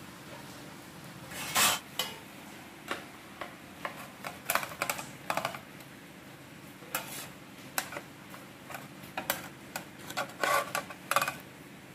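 Metal tongs and cookware clinking and scraping as toasted bread sandwiches are lifted off a pan: a string of irregular clatters, loudest about a second and a half in and again near the end.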